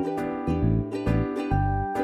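Background music led by a plucked string instrument, with notes picked a few times a second over a changing bass line.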